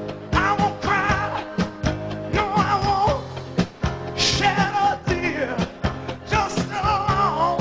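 Background music: a song with a singing voice over drums and guitar, with a steady beat.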